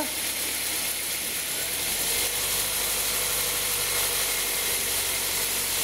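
Toyota Corolla four-cylinder engine idling with a new accessory belt and tensioner fitted. About two seconds in, a steady hum sets in as the car is put in gear. No belt or tensioner noise stands out.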